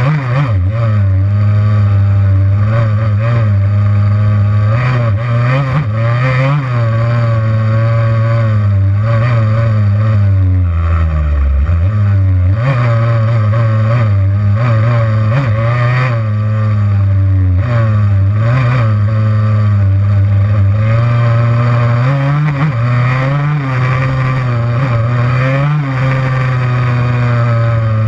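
Yamaha YZ85 two-stroke single-cylinder dirt-bike engine being ridden, its revs rising and falling with throttle and gear changes. About eleven seconds in, the pitch drops low before it picks up again.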